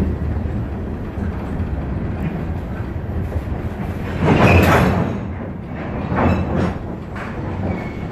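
Freight covered hopper cars rolling past, steel wheels rumbling and clicking on the rails. About four seconds in it swells louder for a second as the wheel trucks at the joint between two cars go by, with a brief high squeal.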